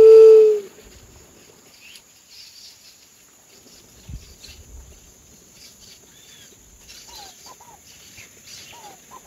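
A single low, moaning juriti (white-tipped dove) call, loud and about two-thirds of a second long, right at the start. Several short, quick, falling chirps from small birds follow near the end.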